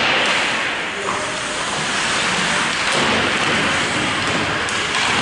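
Ice hockey rink during play: a loud, steady hiss of crowd and rink noise, with a few sharp clacks of sticks and puck, one about three seconds in and another near the end.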